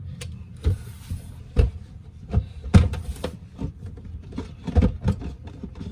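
Clunks, clicks and a short scrape of a replacement battery being handled and slid back into an APC UPS case, its wires just reconnected; several separate knocks of uneven spacing, with the scrape about a second in.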